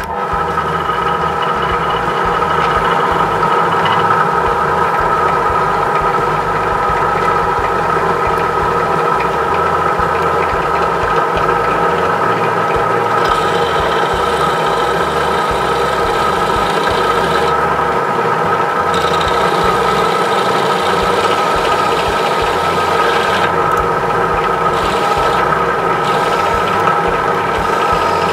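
Drill press running steadily, its 4 mm steel-drilling bit cutting into the metal rivet on the underside of a Tomica die-cast minicar to drill it out. A steady motor hum is heard throughout, with a higher hiss coming and going in the second half as the bit cuts.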